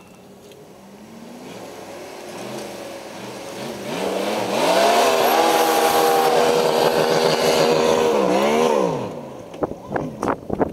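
Pickup truck engine revving hard under load while a stuck truck is pulled out of a muddy pond: the engine note climbs, holds high for about four seconds, then drops away. A few sharp knocks come near the end.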